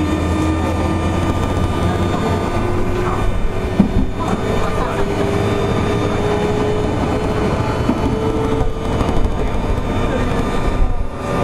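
A JR West 201 series electric train with armature chopper control running: a whine rises slowly and steadily in pitch as the train gathers speed, over the rumble of wheels on rail.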